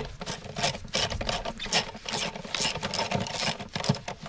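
A hand ratchet clicking in a steady run of short strokes, about three clicks a second, as it drives the 10 mm screw into the plastic air-filter housing.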